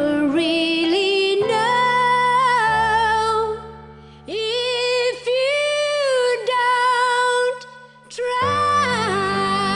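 A woman singing a song in long held phrases over sustained low accompanying notes, breaking off briefly about four seconds in and again near eight seconds.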